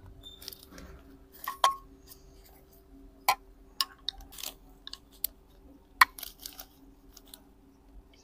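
People eating a meal with spoons and plates: scattered light clicks and clinks of cutlery on dishes, one ringing briefly, with faint chewing between them.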